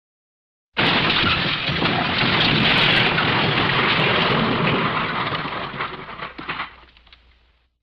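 The 'elephant smash' crash sound effect: a loud, noisy crash that starts abruptly about a second in, holds for several seconds and fades to silence near the end.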